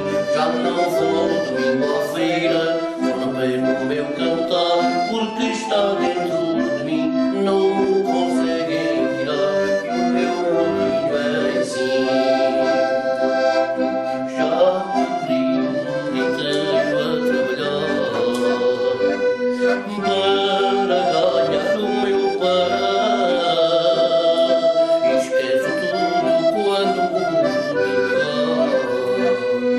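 Piano accordion playing a traditional folk tune while a man sings along.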